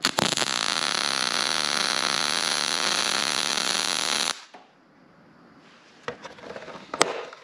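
ESAB Rebel 205ic MIG welder's arc running steadily on thin 20-gauge sheet metal for about four seconds, starting and cutting off abruptly. A sharp click follows near the end.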